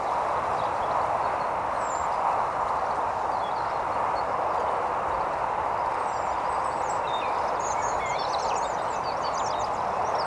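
Steady hiss of background noise with faint high chirps of small birds above it, turning into busy, rapid twittering song about two-thirds of the way in.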